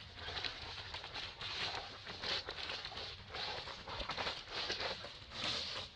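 Irregular rustling and crackling of dry leaf litter, a few soft noisy bursts a second, as macaques shift about on it.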